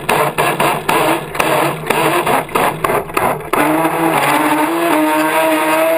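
Motor of an RC speedboat running at speed, heard from on board. For the first three and a half seconds it is choppy, broken by many sharp cracks. It then settles into a steady, pitched motor note that climbs slightly near the end.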